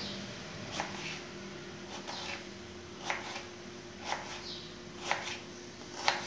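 Kitchen knife slicing peeled raw mango on a wooden cutting board, each cut ending in a sharp tap of the blade on the board, roughly one a second.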